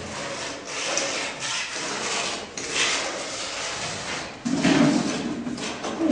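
Scraping and knocking from hand plastering of a wall, a trowel working wet plaster, with a louder burst about four and a half seconds in.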